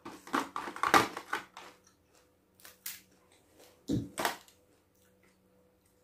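Cooked crab shell being cracked and broken apart by hand: a quick run of crunching cracks in the first second and a half, then a few single cracks around three and four seconds in.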